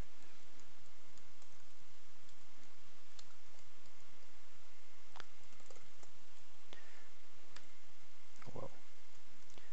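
A few separate sharp clicks of a computer mouse and keyboard over a steady background hiss, with a brief low vocal sound near the end.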